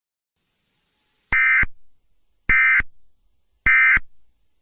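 EAS/SAME end-of-message data bursts: three short, identical, buzzy digital chirps, about a second apart, each with a brief echo. They mark the end of the emergency alert message.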